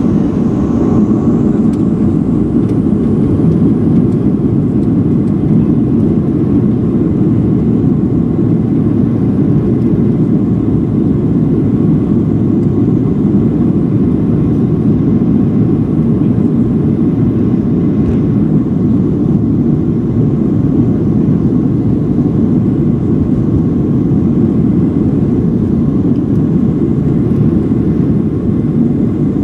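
Steady engine and air noise of a Boeing 737-700 airliner, heard from inside the passenger cabin.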